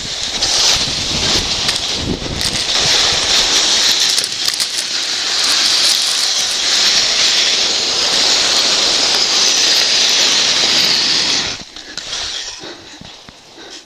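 Loud steady hiss of a body sliding fast down a steep snow slope in an uncontrolled glissade, snow scraping and spraying past with wind on the microphone. About eleven and a half seconds in it stops abruptly as the slide is halted in an ice-axe self-arrest.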